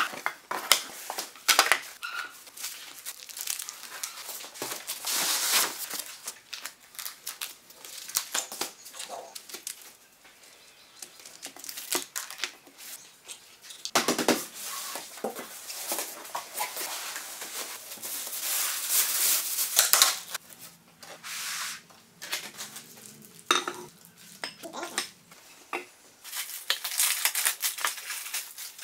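Unpacking noises: cardboard box flaps and foam packing being handled, plastic bags rustling, and metal parts knocking and clinking as they are set down on a wooden workbench, in irregular bursts.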